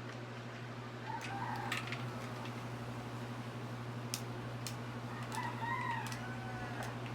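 A rooster crowing twice, about a second in and again near the end, each call an arching pitched cry. Sharp clicks of the ring light's parts being handled come in between.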